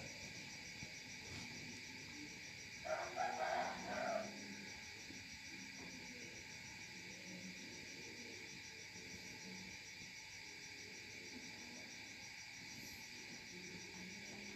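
Crickets chirping steadily in a fast, even trill, with a brief louder sound about three seconds in.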